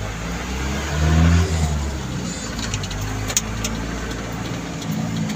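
Vehicle engine and road noise heard from inside the cab while driving, the engine swelling briefly about a second in, with a few light clicks in the middle.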